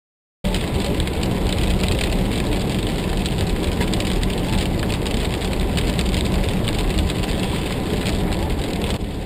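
Car driving on a wet road, heard from inside the cabin: steady engine rumble and the hiss of tyres and spray, with rain pattering on the windscreen. It starts suddenly about half a second in.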